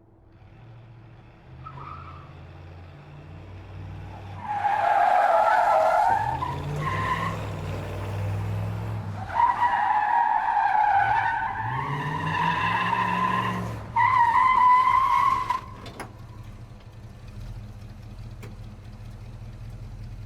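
Muscle car engine revving up again and again while its tyres squeal in several long skids, the loudest through the middle. After the last squeal the engine runs on steadily at low revs.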